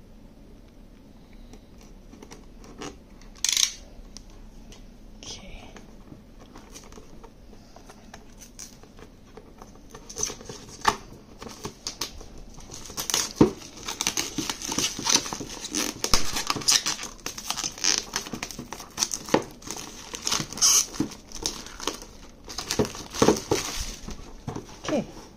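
Plastic shrink-wrap on a cardboard toy box being slit with a box cutter and peeled off. A few scattered clicks come first, then rapid crinkling and crackling of the film from about ten seconds in.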